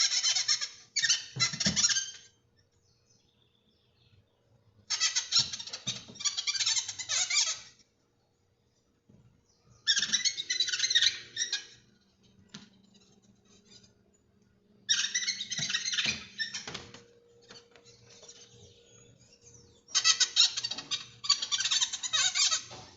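A bird chirping in rapid trills, in bursts of about two seconds repeated roughly every five seconds.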